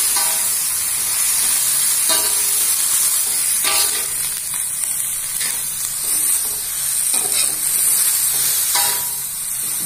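Water spinach stir-frying in a metal wok: a steady sizzle, with a metal spatula scraping and knocking against the wok every second or two as the greens are stirred.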